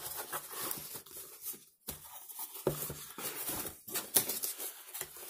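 Cardboard box handled and slid across a wooden tabletop: irregular scraping, rustling and light taps, with a brief pause a little under two seconds in.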